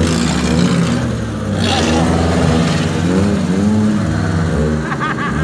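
Off-road 4x4's engine revving up and down under load as it climbs and crawls over a dirt mound, its pitch rising and falling repeatedly.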